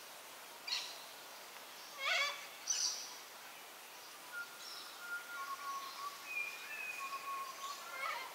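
Bush ambience with bird calls: a few short chirps and calls in the first three seconds, then a run of drawn-out whistled notes held at a few steady pitches, over a faint steady hiss.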